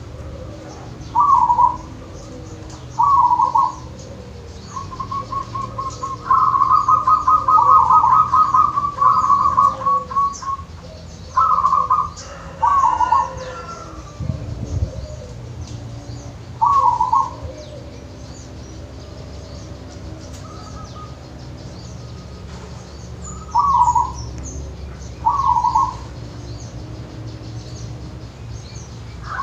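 Zebra dove (perkutut) cooing: short coos a couple of seconds apart, with a longer run of rapid staccato cooing notes from about five to ten seconds in. Faint chirps of other birds in the background.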